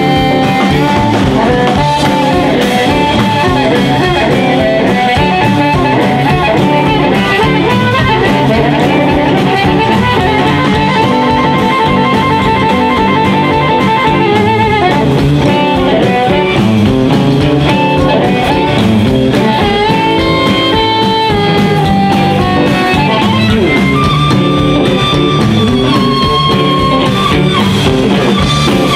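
Live blues band playing: amplified harmonica blown through a handheld microphone, with electric guitar and drum kit. About halfway through there is a rapid warbling run of repeated notes, and near the end a few long held high notes.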